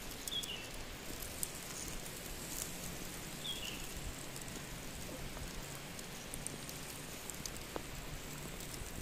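Whole skinned rabbit roasting over charcoal embers: a faint steady sizzle with scattered small crackles. Two short high chirps sound twice, near the start and about three and a half seconds in.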